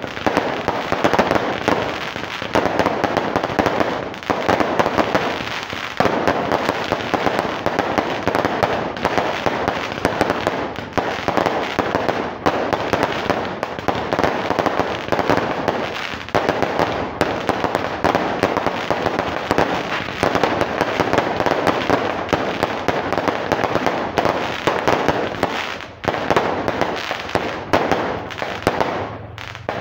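A close barrage of fireworks going off without pause: rapid popping and a dense crackle of bursting shells and crackling stars, with a few brief lulls.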